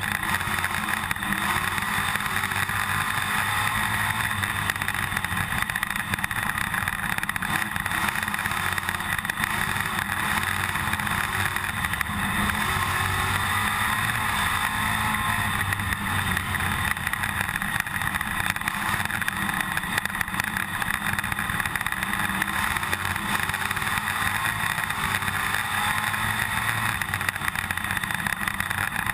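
IMCA stock car's V8 engine racing, heard from inside the cockpit along with a steady rattle. The engine pitch rises and falls over and over as the driver gets on and off the throttle.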